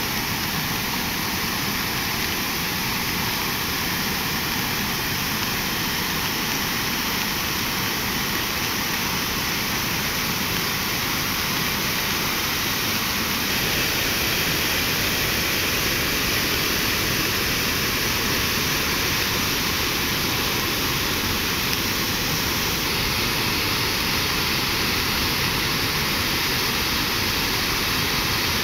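Turbulent floodwater rushing through a washed-out causeway: a steady, even rush of water, slightly louder from about halfway.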